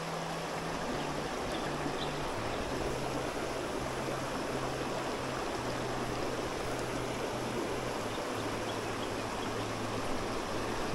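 Creek water running over rocks, a steady rushing sound, with faint low notes of background music underneath.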